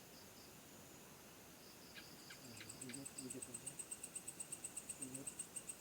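Crickets chirping: a soft high chirp repeating, then from about three seconds in a louder, fast pulsing chirp about nine times a second that stops just before the end. A few faint clicks come about two seconds in.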